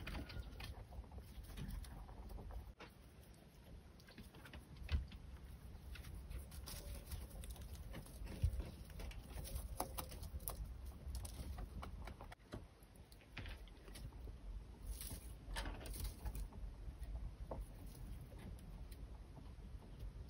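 Faint rustling and small scattered clicks and taps of rabbits moving about and feeding in a wooden hutch with straw, over a low rumble.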